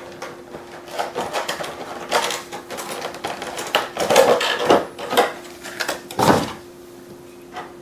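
Unboxing handling of a small drone's packaging: irregular cardboard and plastic rustling and clicking as the drone is taken out of its box tray, with louder knocks about four and six seconds in.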